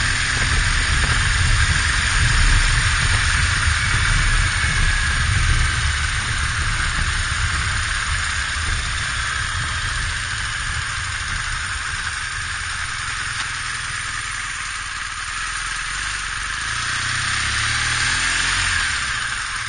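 BMW R1200GS boxer-twin engine running while the motorcycle is ridden, mixed with wind and road noise. The sound eases off gradually through the middle and swells again briefly near the end.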